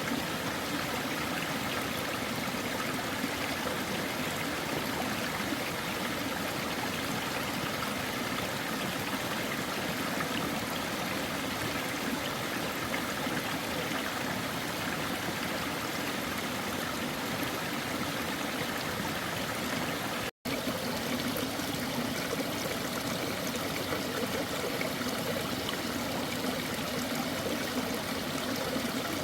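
A stream running steadily, a continuous rush and trickle of water. The sound drops out for a split second about twenty seconds in.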